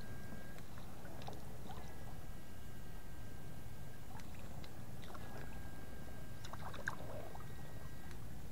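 PDC 8 FET electric fish shocker giving a steady high whine that switches on and off, three stretches of two to three seconds each, over sloshing water and a few small knocks.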